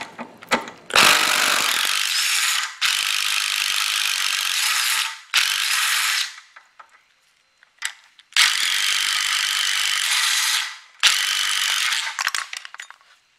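Cordless impact driver hammering out the 10 mm bolts that hold a scooter's front brake caliper, in five rattling bursts of one to two and a half seconds with a pause in the middle.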